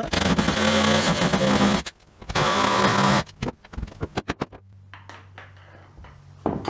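Power saw cutting through the wooden floor for a return-air duct opening, in two loud passes with the motor running under each, then a few knocks and a lower steady hum.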